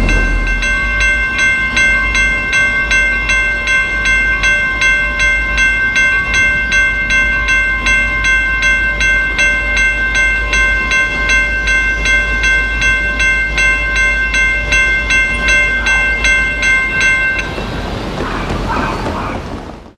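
A railway warning bell ringing in even strokes, about two a second, over the low rumble of a train pulling into the station. The bell stops a couple of seconds before the end, leaving only the train's rumble.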